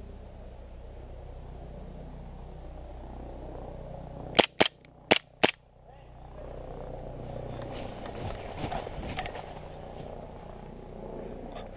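Airsoft pistol firing four quick shots, two sharp pairs about four and a half seconds in. Afterward, rustling and footsteps through undergrowth.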